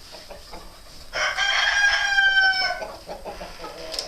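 A rooster crows once, a single long call held for about a second and a half and falling slightly at the end, with quieter hen clucking around it.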